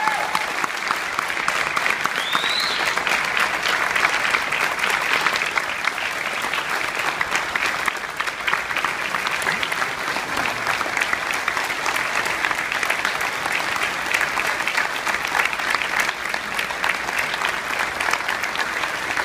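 Audience applauding, many hands clapping steadily and without a break.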